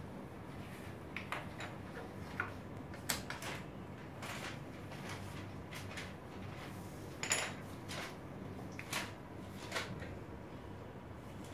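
Steady low room hum with scattered small clicks and knocks from people working at desks, the loudest about seven seconds in.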